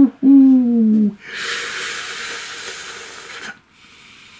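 A man's drawn-out, falling wordless "hmm"/"ooh" of about a second, then a long hissing breath blown out through pursed lips that fades away: a hesitant, pondering sound.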